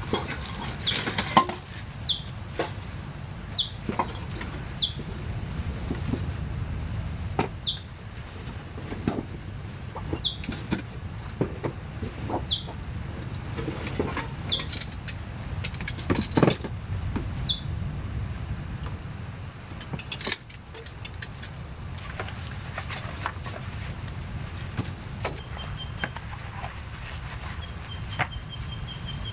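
A steady high drone of insects in the bush over a low rumble, with short high chirps about once a second and a pulsing call near the end. Clicks, knocks and rustles of gear being handled on a table come and go throughout.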